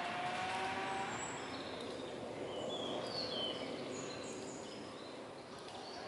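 Steady outdoor background noise with a few short, high bird chirps in the middle.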